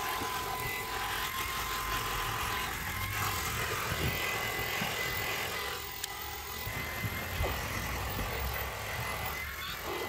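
AEG Ultimate 8000 (AP81A25ULT) cordless stick vacuum running, a steady rushing hiss with a thin high motor whine as its nozzle sucks over car-boot carpet.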